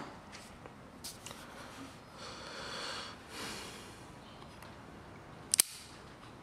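Stainless Smith & Wesson 686 revolver being handled: a few light metallic clicks, a soft sniff, then a sharp double click as the swing-out cylinder is closed and latches into the frame.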